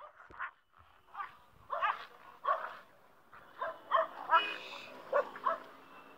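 Stray puppies whimpering and yipping in a string of short, high-pitched calls, each rising and falling, with brief pauses between them.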